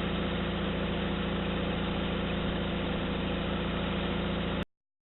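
A vehicle engine idling with a steady low hum. The sound cuts off abruptly near the end as the recording stops.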